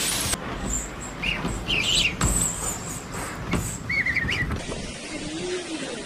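Storm wind at hurricane strength gusting outside a window, with irregular buffeting surges and a few short, high, wavering squeals.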